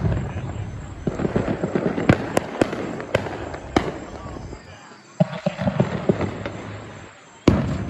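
Fireworks going off: a loud bang at the start, a run of sharp cracks and crackling a couple of seconds in, and another loud bang near the end.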